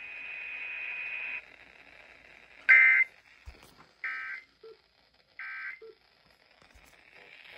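Emergency Alert System end-of-message tones over a radio broadcast: after a second or so of faint hiss, three short, identical data-burst squawks about a second apart, marking the end of the alert.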